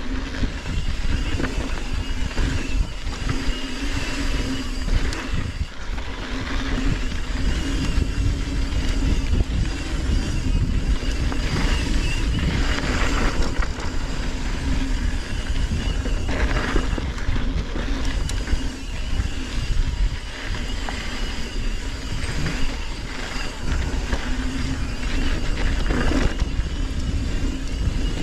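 Continuous riding noise from a bike on a trail: wind buffeting the microphone and tyres rumbling over rough ground, with frequent short knocks from bumps and a faint steady whine that comes and goes.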